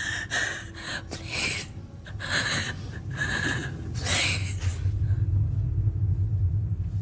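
A woman gasping and whimpering in fear, a series of sharp ragged breaths about once a second. A low steady rumble comes in about five seconds in.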